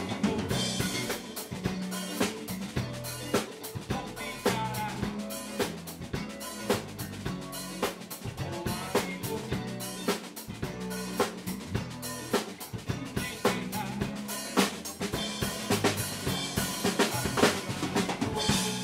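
Live rock band playing: a drum kit with frequent snare and bass-drum hits over electric guitar and bass guitar.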